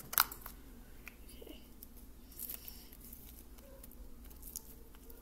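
Quiet, sticky squishing and small clicks of old butter slime being kneaded by hand, with one sharp click just after the start.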